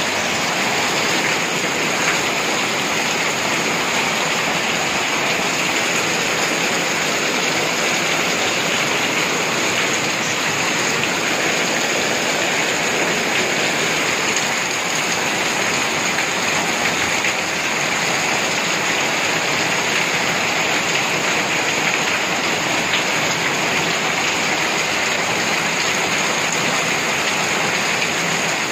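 Heavy rain falling steadily, splashing on paved ground and leaves.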